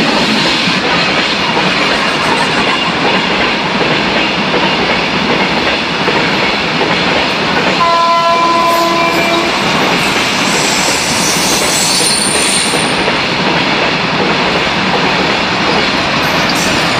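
Loaded covered goods wagons of a freight train rolling past at speed: a steady, loud rumble and rattle of wheels on rail joints. About eight seconds in, a train horn sounds for about a second and a half. A faint high wheel squeal follows for a couple of seconds.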